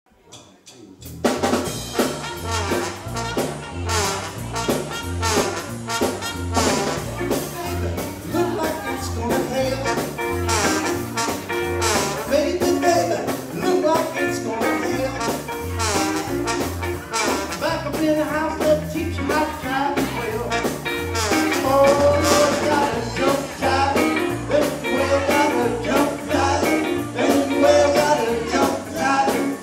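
Live R&B and soul band playing: trumpet and trombone over electric guitar, bass guitar and drums, with a steady bass line and drum beat, and vocals at the microphones. The music starts about a second in.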